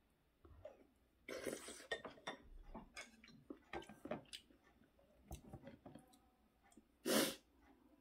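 A person eating at the table: chewing and slurping a spoonful of stew, with light clicks of wooden chopsticks against bowls. Near the end comes one short, sharp breath, the loudest sound.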